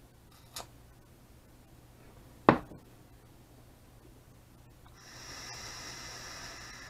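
A small click, then a sharp knock about two and a half seconds in, the loudest sound. About five seconds in comes a steady hissing draw through a vape tank's airflow, with a thin high whistle, lasting a couple of seconds.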